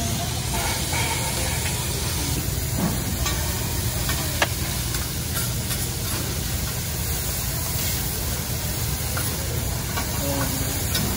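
Food frying on a hot steel hibachi griddle: a steady sizzle as the chef stirs it with a metal spatula. There are a few sharp clicks of the spatula on the steel, the clearest about three and four and a half seconds in.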